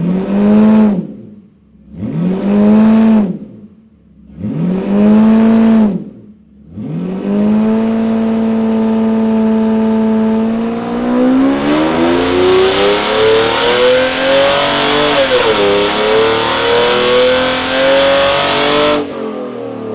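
Mercedes SL600 V12 revved three times in quick blips, then held at steady revs, then run up in a long full-throttle dynamometer pull with rising pitch. The pitch dips briefly partway through, and the sound cuts off abruptly near the end. The exhaust runs without its rear muffler.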